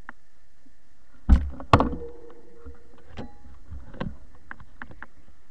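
Mountain bike knocking and rattling over a rough dirt trail, heard through a bike-mounted action camera: two sharp knocks close together about a second in, then scattered lighter clicks and knocks over a steady hum.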